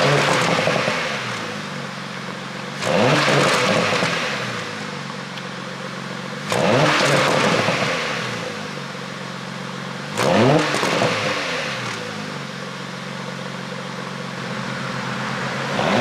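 2018 Porsche Panamera 4's twin-turbo V6 revved in short blips about every three to four seconds, the pitch climbing sharply and falling back to a steady idle each time; four blips, with a fifth starting near the end.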